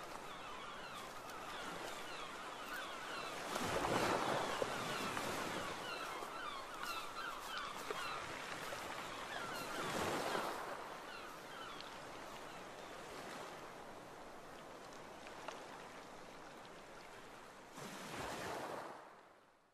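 Sea waves washing in, the surf noise swelling and ebbing about three times, with faint short high chirps over it in the first half. It cuts off abruptly just before the end.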